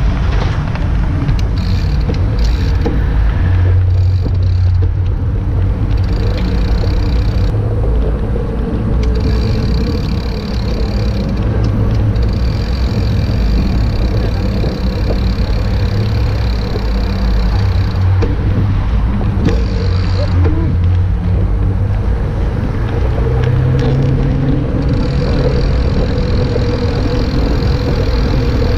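Wind buffeting the microphone of a bicycle-mounted camera while riding, with tyre and road noise from the bicycles and passing street traffic; the wind rumble rises and falls without a break.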